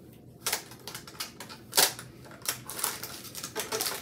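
Packs of false lashes being handled and stacked by hand: a series of light clicks and taps, about six, with one louder clack a little under two seconds in.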